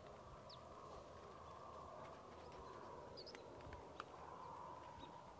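Near silence: faint open-field ambience with a steady faint drone, a few brief bird chirps, and a small click about four seconds in.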